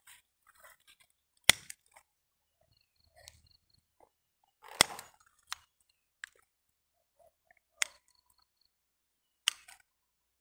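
Hand pruning shears snipping grapevine side shoots and tendrils: about half a dozen sharp snips spread out at irregular gaps, with quiet in between.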